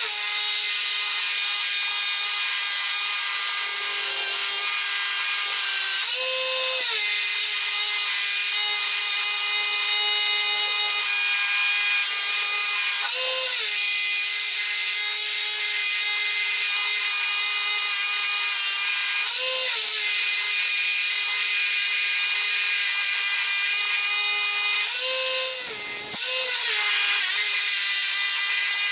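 Electric power tool working 40-year-old concrete, its motor running steadily under load. The pitch rises briefly about every six seconds as the load eases, and there is a short dip about four seconds before the end.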